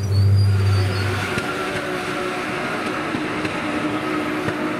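Porsche 911 GT3 Cup cars with 4.0-litre flat-six engines. For about the first second, several cars rumble low at slow running pace. About a second in, the sound changes to the cars running at speed on track, with a steadier, higher engine note.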